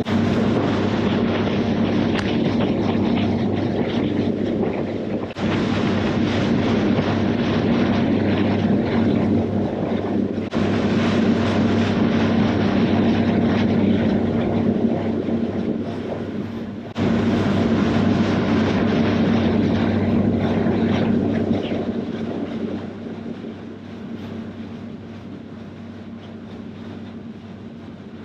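Outboard motor of a bass boat running steadily at cruising speed, about 30 mph, with wind and water rushing past the hull. It grows quieter over the last several seconds.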